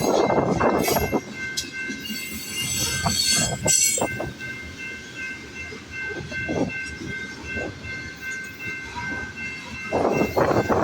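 Loaded freight cars of a grain train rolling past, with wheels knocking and clattering over the rails and a steady high-pitched ringing or squeal from the wheels; a hiss comes in briefly a couple of seconds in, and the rolling gets louder near the end.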